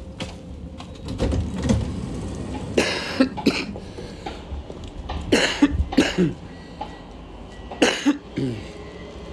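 A man coughing in three fits, each two or three harsh coughs, a couple of seconds apart, over the low rumble of a suburban electric train carriage.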